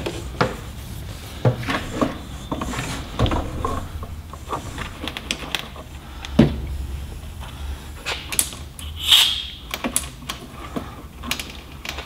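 Irregular clicks, taps and knocks of hand tools and metal parts being handled while a riveted luggage door hinge is worked off a truck cab, with one louder, longer sound about nine seconds in.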